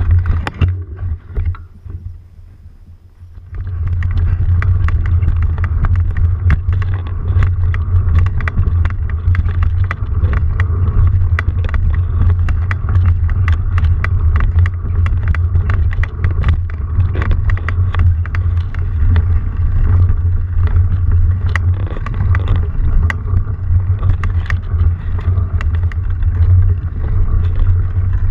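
Low rumble with constant rattling and knocking from a camera mounted on a bike riding a rough dirt trail. It drops away for a couple of seconds about a second in, then returns.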